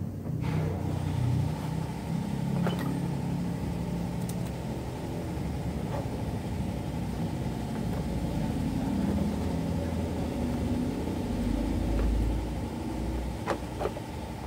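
Low, steady rumble of a vehicle engine running nearby, with a few faint clicks and taps as a new fan belt is worked by hand onto the engine's pulleys.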